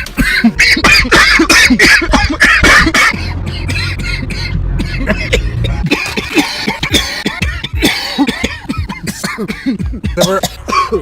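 Repeated harsh coughing, many coughs in quick succession, from smokers after taking a hit of marijuana.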